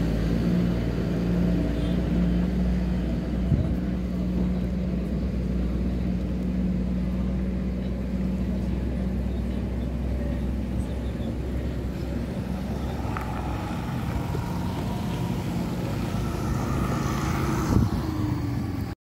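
A motor vehicle engine running steadily with a low hum, which dies away over the last few seconds.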